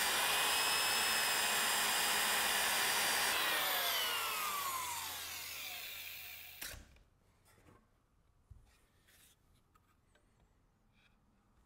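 Handheld electric power tool running at full speed against the wooden horse's leg. It is switched off after about three and a half seconds and winds down with a falling whine, then is set down with a single clunk. Faint light knocks of wood follow as the carved horse is handled on its rockers.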